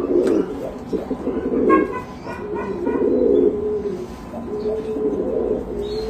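Buchón pouter pigeons cooing, a run of low, drawn-out coos one after another.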